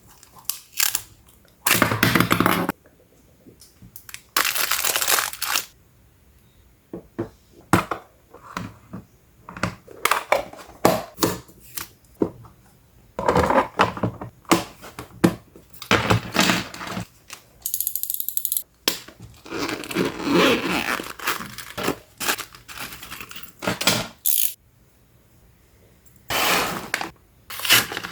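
Packaging being opened by hand: irregular tearing and crinkling of wrapping, with scattered small clicks and knocks.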